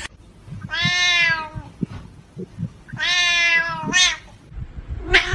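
A cat meowing: two long, drawn-out meows about two seconds apart, then a short one near the end.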